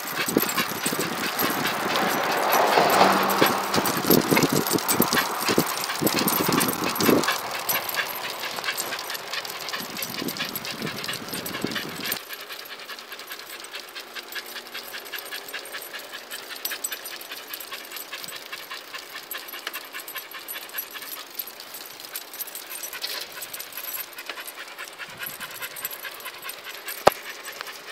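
Two dogs panting as they trot on leash beside a moving bicycle, over a dense rattle of small clicks. The sound drops noticeably about twelve seconds in, and one sharp click comes near the end.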